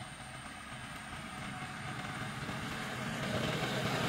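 A vehicle engine running with road noise, growing steadily louder.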